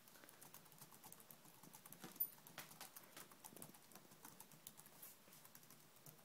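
Faint, quick, irregular patter of dog paws and claws tapping and scrabbling as a Miniature Pinscher and a pug dart after a laser dot, with one sharper tap a little after two seconds in.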